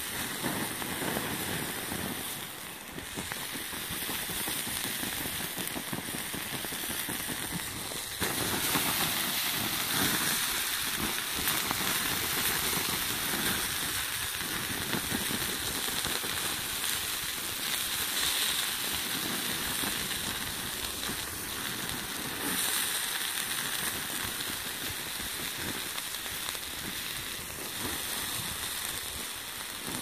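Garden hose spraying water onto a smouldering coil of burnt power cable and hot ashes: a steady rush of noise with small crackles, getting louder about eight seconds in.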